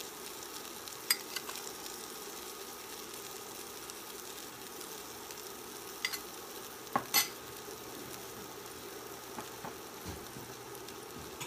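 Eggnog-soaked bread frying in melted butter in a pan, sizzling steadily. A few sharp clicks and clinks break in, the loudest a pair about seven seconds in.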